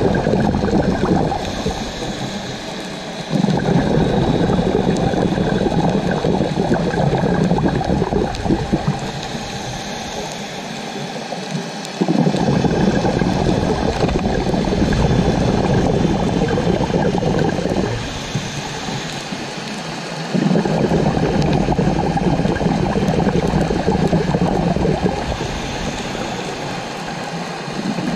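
Scuba diver breathing through a regulator underwater. Long bubbling exhalations alternate with shorter, quieter hissing inhalations, about one breath every eight seconds.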